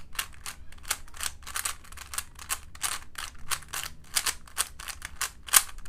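A 3x3 Rubik's-type cube being scrambled by hand: its plastic layers are turned quickly, giving a fast, irregular run of clicks and clacks, about four or five a second, with one louder clack near the end.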